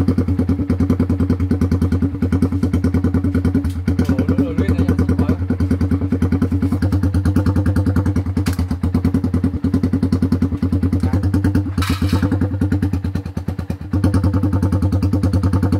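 Yamaha Exciter 150's single-cylinder four-stroke engine idling loud with a fast, choppy exhaust beat through a homemade soda-can exhaust. A short hiss sounds about twelve seconds in.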